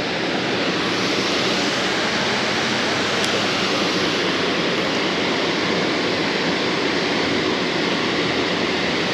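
Water pouring over a low concrete river dam: a steady, even rush of falling water.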